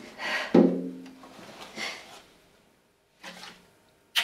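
A woman's breathy sobs: four short shaky breaths with pauses between, two of them with a brief voiced catch in the throat.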